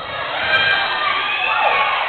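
Basketball crowd shouting and cheering, many voices at once.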